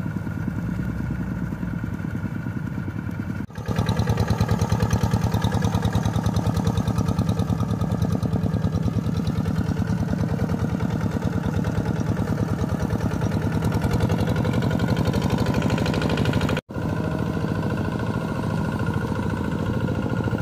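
Engine of a hand tractor plowing a nearby rice paddy, running steadily with a rapid, even beat. It gets louder about three and a half seconds in and drops out for an instant near the end.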